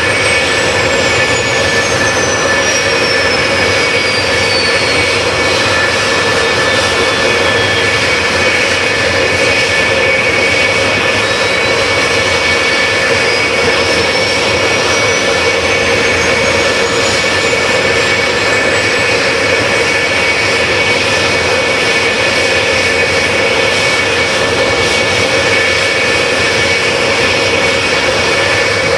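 Jet engines of a JASDF F-4 Phantom II running steadily at idle on the ground: a loud, even jet rush with steady whining tones. A thin high whistle slides down in pitch over the first several seconds, then rises again a little later.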